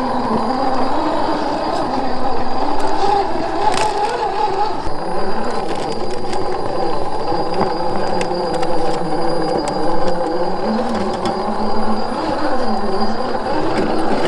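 Scale RC crawler's electric motor and gearbox whining under load as it crawls over rock, the pitch wavering slowly up and down with the throttle.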